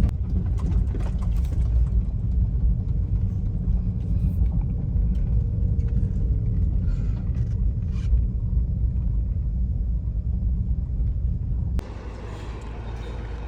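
Steady low rumble of a car, with no rise or fall in pitch; it cuts off abruptly about twelve seconds in.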